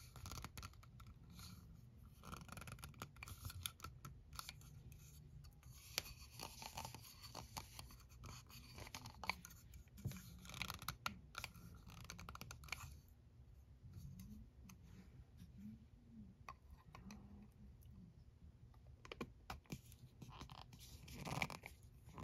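Faint scraping, tapping and clicking of nail-stamping tools being handled: a metal stamping plate, a silicone mat and a clear jelly stamper. The small noises come in scattered bursts and die down for a few seconds past the middle.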